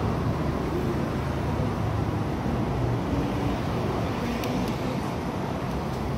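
Steady road traffic noise: cars running past on a city street.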